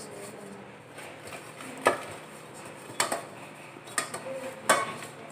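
Metal cake tin being greased by hand with oil: faint rubbing inside the tin, broken by four light metallic knocks, one about every second from the middle on, the last ringing briefly.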